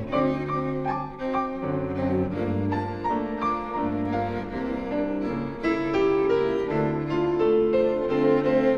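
Steinway grand piano and string quartet (two violins, viola and cello) playing together in a jazz-tinged arrangement of a Ukrainian folk song, with the cello holding long low notes under the piano and violin lines.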